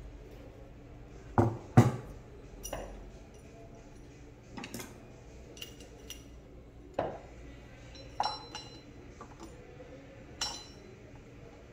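Scattered sharp metallic clinks and knocks as the parts of a PCP air rifle and hex keys are handled and set down on a wooden workbench. There are about seven separate strikes, and the loudest pair comes close together a little under two seconds in.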